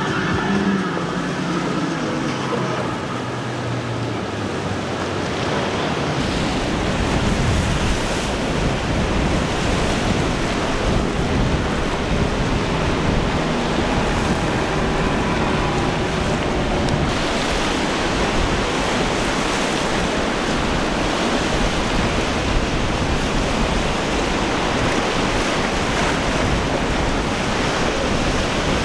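Rough sea at an inlet: waves breaking and washing in a steady rush of noise, with wind on the microphone. It grows a little heavier in the low end about six seconds in.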